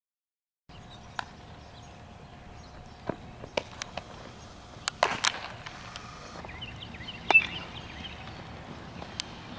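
Baseball infield practice: sharp knocks of a bat hitting ground balls and baseballs smacking into leather gloves, about seven or eight separate hits over steady outdoor background noise. The sound starts after a brief silence, and the loudest hits come about halfway through and again about two seconds later.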